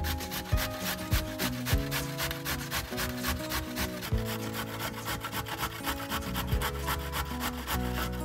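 A carrot being rubbed up and down a stainless steel box grater, a fast, even run of rasping strokes, over soft background music.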